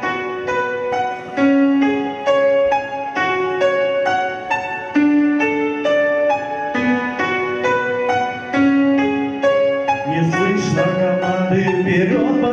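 Slow instrumental music, a keyboard playing a melody of single held notes. About ten seconds in, a fuller accompaniment with lower notes comes in.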